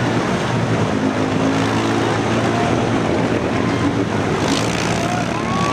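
ATV engines running hard at high revs as quads drive through a deep mud pit, with the pitch shifting a little as the throttle changes.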